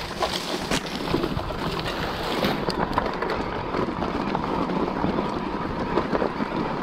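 Wind rushing over the camera's microphone while a mountain bike rolls downhill over loose stones and rock, the tyres crunching and the bike rattling with frequent small clicks and knocks.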